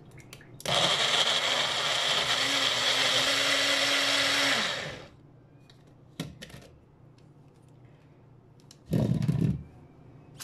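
Small personal bullet-style blender pureeing peeled boiled tomatoes. The motor runs with a steady whine for about four seconds, then cuts off and spins down. A click follows, and there is a second short, loud burst of noise near the end.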